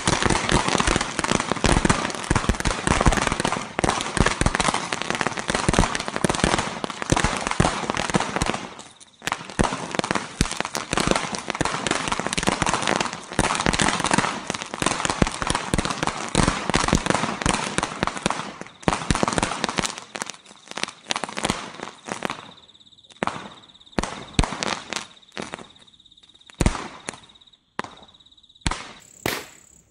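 A Winner Brand Kungfu Bada Deluxe 1000-shot firecracker string (wala) bursting in a dense, rapid crackle of bangs, with a brief lull about nine seconds in. From about twenty seconds the bangs thin out into scattered single reports as the string burns to its end.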